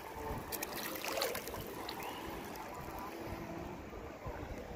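Lake water lapping and splashing close to the microphone, with a few small splashes about half a second and a second in, over light wind noise.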